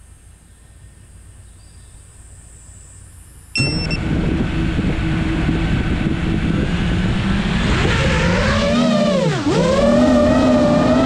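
Geprc Mark 5 FPV quadcopter's brushless motors: after a faint hiss, a short beep about three and a half seconds in, then the motors start up with a steady hum at idle. About eight seconds in the pitch dips and climbs again as the throttle is opened for takeoff.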